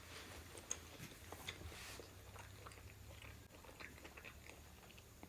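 Faint chewing of food, with soft small mouth clicks scattered through, over a low steady hum.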